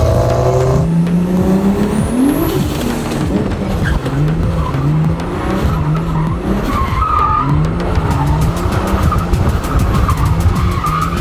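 Car engine and road noise while driving, the engine note rising and falling in short steps as the throttle and revs change.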